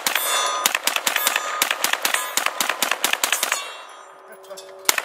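Rapid string of 9mm shots from a Double Star AR-15 pistol, with steel targets ringing between the hits. The firing stops a little past halfway, then one last shot comes near the end.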